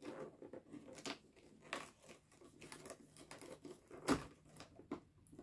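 Cardboard advent calendar door being pried and torn open and the packaging inside crinkled, a series of soft rustles and crackles with one louder crackle about four seconds in.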